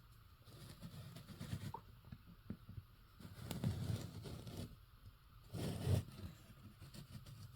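Faint handling noise as a diecast model airplane is turned around by hand: soft scrapes and light clicks, with dull bumps about halfway through and again nearer the end.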